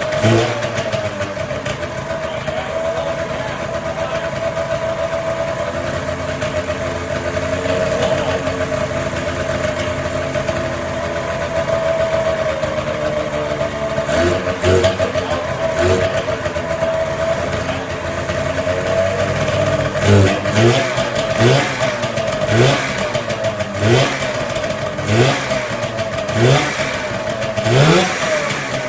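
Polaris Supersport snowmobile's 440 two-stroke twin engine running, at first steady at idle, then, from about halfway in, revved again and again with short throttle blips, a little over one a second.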